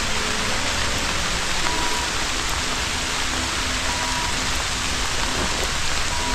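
Steady rain falling on outdoor surfaces, an even hiss that holds at the same level throughout.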